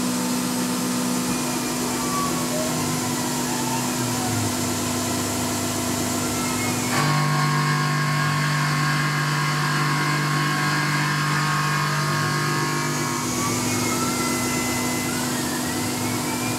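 Tormach PCNC 1100 CNC mill running with its spindle turning a three-flute carbide end mill at steady speed, while the axis drives whine, rising and falling in pitch as they move the tool along a slow lead-in toward the aluminum block. A steadier tone sets in about seven seconds in and holds for about six seconds before the rising and falling whines return.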